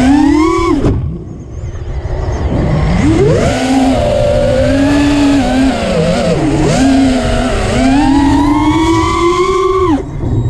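FPV quadcopter's electric motors and propellers whining, the pitch rising and falling with the throttle. About a second in the throttle is chopped and the whine drops away for a couple of seconds before it comes back. It climbs steadily again and cuts off sharply near the end, during a flip. Wind rushes over the on-board camera's microphone underneath.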